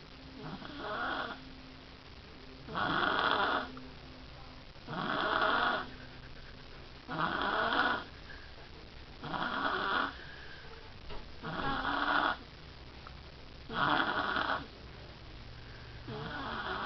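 A baby snoring in a steady rhythm, about one snore every two seconds, each lasting under a second.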